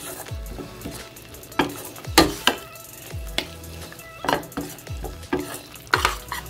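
A spoon stirring and scraping a thick tomato-onion masala paste frying in a metal pan, knocking against the pan about once or twice a second over a low sizzle.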